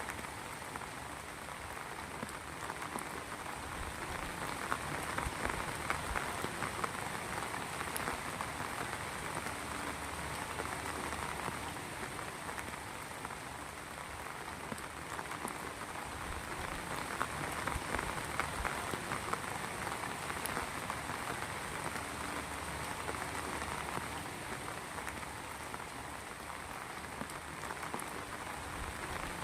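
Heavy rain falling steadily, a dense, even patter of many drops.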